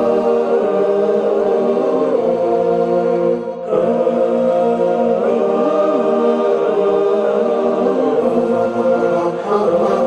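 Closing theme music sung as a chant by several voices in harmony, with a brief drop a little over three seconds in.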